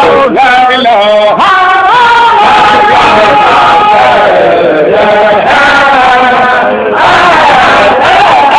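Men's voices chanting a Sufi zikr in the Baye Fall style, with long held notes that glide up and down.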